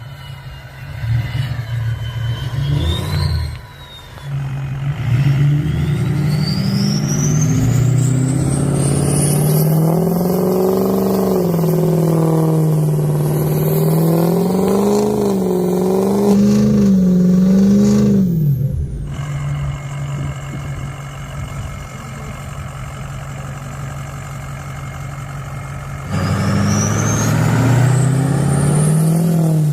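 Diesel pickup truck engine working through deep snow, its revs rising and falling again and again with a faint rising whistle as it climbs. The revs drop away sharply about two-thirds of the way through, run lower and quieter for a while, then climb again near the end.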